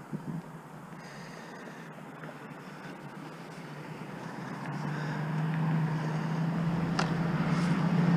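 A motor vehicle's engine running with a steady low hum, growing steadily louder through the second half as it comes closer.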